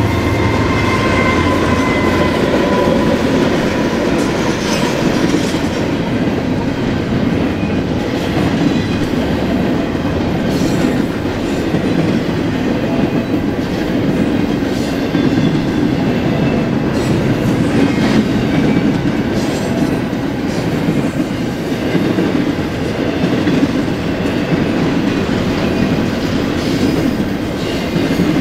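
BNSF double-stack intermodal freight train rolling past: a steady rumble with clickety-clack of wheels over the rail joints from the container well cars and trailer flatcars. In the first two or three seconds the tail of the horn and the locomotives' engine hum fade out, the horn sagging slightly in pitch as it goes by.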